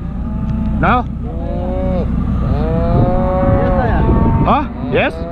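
Calves bawling while held down on the ground for branding: several drawn-out calls a second or more long, with shorter calls about a second in and near the end.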